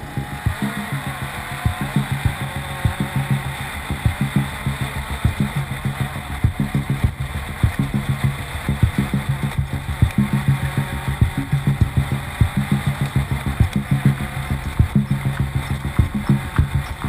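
Class 12 off-road race car's engine running steadily, with frequent irregular knocks and rattles over it.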